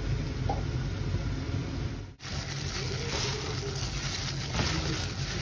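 Water boiling hard in a pan of curly-leaf Brussels sprouts as they blanch, a steady bubbling. After a break about two seconds in, a similar steady noise goes on while hands toss the blanched greens in a plastic colander.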